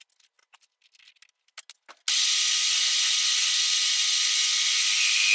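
A few light metallic clicks and taps at a metal lathe's carriage and tool post, then, about two seconds in, a loud steady hiss starts abruptly and keeps on.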